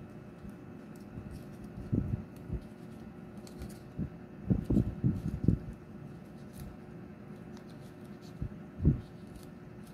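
Hands folding and pressing a cardstock paper puppet together: soft low thumps of fingers and paper with faint crinkles. They come in a cluster a little past the middle, with a louder thump near the end.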